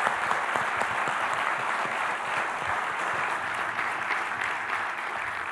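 Audience applause: a full room of people clapping steadily, easing off slightly near the end.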